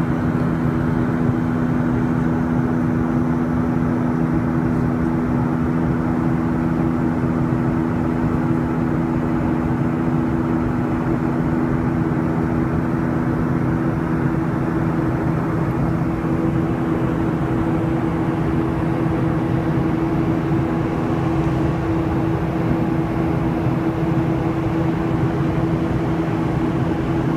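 Cabin noise of a Boeing 737-800 airliner in flight: the steady roar of its CFM56 turbofan engines and rushing air, with two steady low hums running through it.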